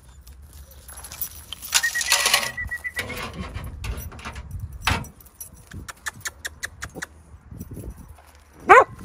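A dog's metal chain jangling and clinking as the dog moves, with one short high yelp from the dog near the end.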